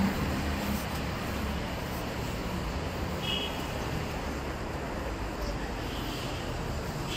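City street traffic noise: a steady wash of passing vehicles, with a low engine hum fading out early on. A short high-pitched tone sounds about three seconds in.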